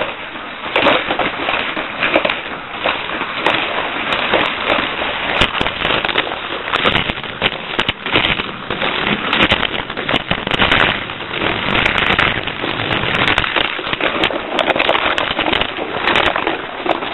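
Lightning McQueen Cars 2 Charge Ups toy racer, a battery-powered Sizzlers-style car, running around a plastic Fat Track. It makes a continuous crackling rattle full of sharp clicks that rises and falls in loudness.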